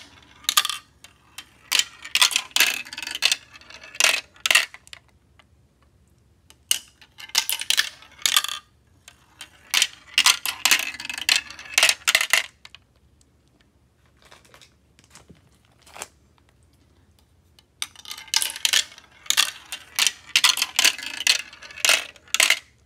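Marbles rolling and clattering through a plastic marble run, rapid clicks as they strike the track pieces and drop into the plastic catch tray. They come in several bursts, with a lull of a few seconds just after the middle.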